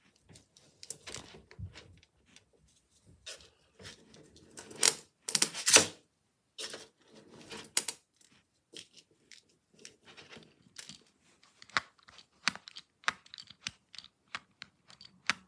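Fidget toys handled by hand, among them a pin art board: a run of quick plastic clicks and rattles, with a louder stretch of rattling scrapes about five seconds in.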